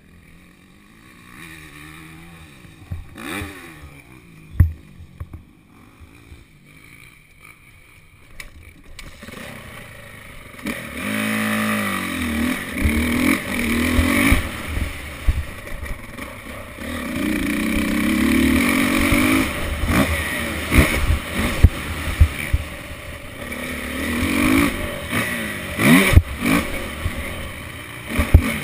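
Motocross bike engine picked up by an onboard camera: low and quiet for the first several seconds, then revving up about ten seconds in and running hard, its pitch rising and falling through gear changes. Sharp knocks come through as the bike rides over the bumpy track.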